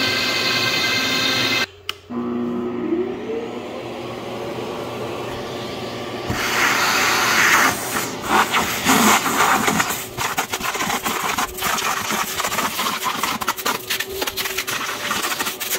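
Background music for the first second or two, then an electric motor spinning up with a rising whine. About six seconds in, a loud rushing, rattling machine noise with many sharp clicks takes over and keeps going.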